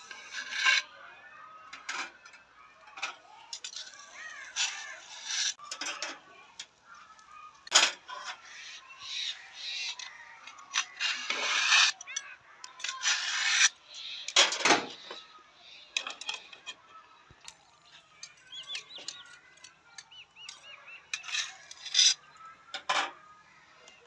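Metal tongs and steel skewers clicking, clinking and scraping as grilled chicken pieces are pulled off the skewers into a clay platter, in irregular knocks with a longer run of scraping part way through. Chickens cluck now and then in the background.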